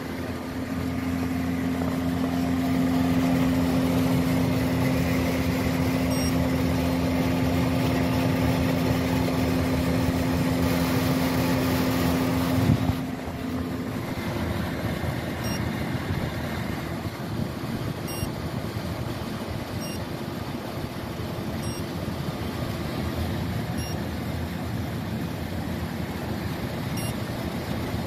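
MrCool Universal 4-ton inverter heat pump outdoor unit running in heating mode in sub-zero cold: steady fan noise with a low compressor hum. About halfway through the hum fades and the unit runs a little quieter.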